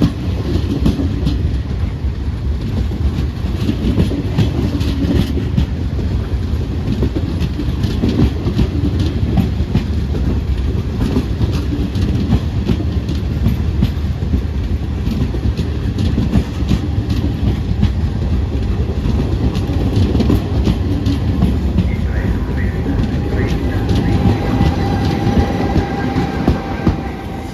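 A train running past close by: a steady heavy rumble with the wheels clattering over rail joints. Faint high squealing tones come in near the end.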